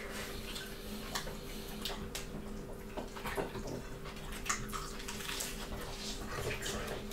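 Close-up eating sounds of two people chewing mouthfuls of lettuce and cabbage leaf wraps with meat, with many short, irregular mouth clicks and crunches over a steady low hum.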